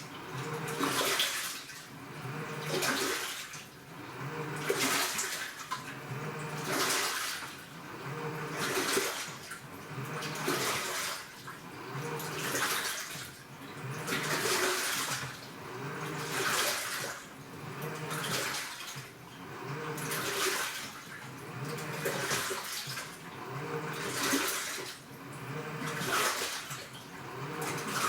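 AQUA washing machine with a direct-drive inverter motor agitating a load in water. The drum's pulsator drives the wash back and forth, giving a surge of churning, splashing water about every two seconds over the motor's pulsing hum.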